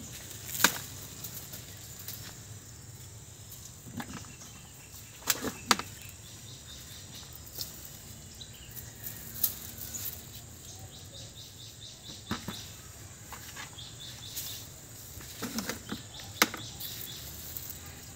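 Cucumber vines and leaves rustling, with sharp snaps and clicks at irregular moments, several times over, as cucumbers are picked off the stems. A faint high insect trill runs in the background through the middle.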